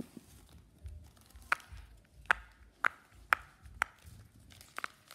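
A run of sharp clicks from small plastic and silicone fidget toys being handled, roughly one every half second with a short pause near the end, over low rustling from handling.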